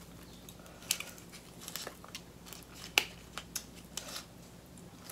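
Faint, scattered clicks and crackles from hands working a piece of king crab leg meat, pulling it apart over a bowl of cheese sauce.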